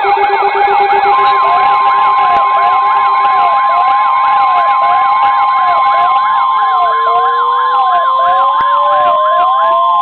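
Several NOAA weather radios sounding their alarms together: overlapping electronic sirens, one warbling about three times a second and another with a slower yelp. From about a second in, the broadcast's long steady single-pitch warning alert tone sounds over them, the signal that a new warning is being issued. A rising wail joins past the middle.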